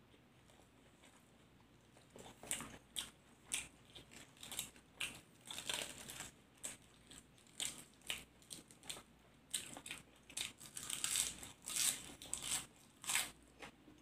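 Close-miked crunchy chewing of a mouthful of fresh raw vegetables and herbs eaten with laab, starting about two seconds in, in irregular crisp crunches about two a second.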